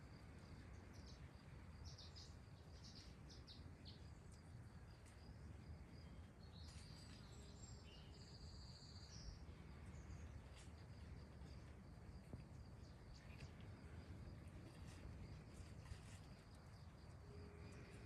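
Near silence: faint outdoor background with a low rumble and a steady thin high tone, broken by a few distant bird chirps, the clearest a short run of calls about seven to nine seconds in.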